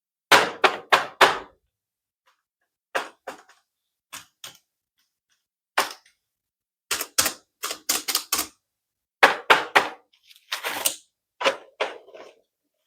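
A toy being clicked and tapped: sharp clicks in quick clusters of two to six, with short silences between, and a slightly longer rattling burst about ten and a half seconds in.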